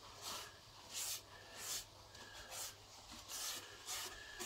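Paper towel rubbing over the greasy ridged plate of an electric griddle grill: a series of soft scrubbing strokes, about six in a few seconds, wiping off the cooking grease.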